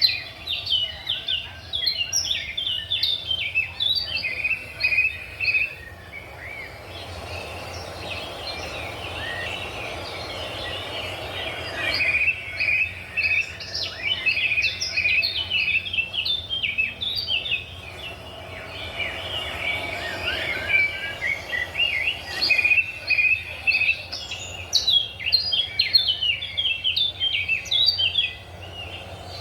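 Small birds chirping and twittering in quick, overlapping short calls, thinning for a few seconds after about six seconds and then busy again, over a steady low hum.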